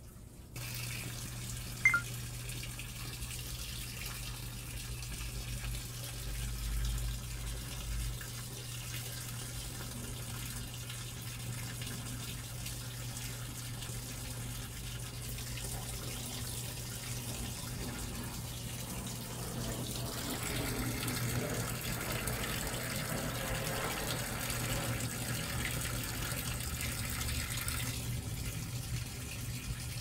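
Panasonic NA-FS160P3X top-load washing machine filling for the rinse: water pours steadily from the inlet into the drum onto wet clothes, with a low steady hum under it. A sharp click comes about two seconds in, and the pouring gets louder for several seconds past the middle.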